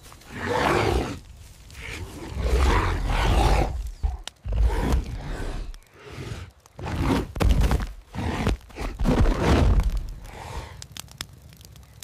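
Sabre-toothed cat growling and snarling: about five rough, deep growls, each a second or so long, with short pauses between.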